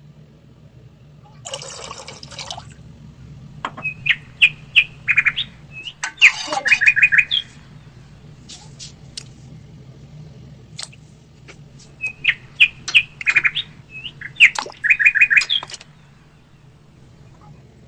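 A bird chirping, the same short phrase of clear notes and quick trills sung twice about eight seconds apart, over a low steady hum. Two short bursts of hissing noise come near the start and during the first phrase, with scattered light clicks.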